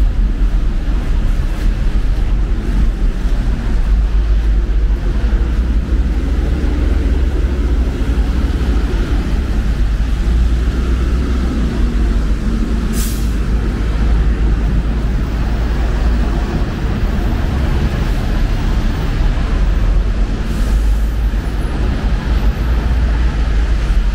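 City street traffic noise: a steady low rumble of passing vehicles, with a brief high hiss about halfway through.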